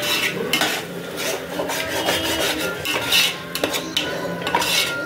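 Slotted metal spoon scraping and stirring a thick masala in an aluminium pot, in a quick run of repeated scraping strokes against the pot's sides and bottom.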